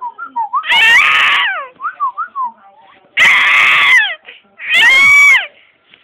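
A baby screaming in three loud, high-pitched shrieks, each about a second long, with short quick whistled notes in between.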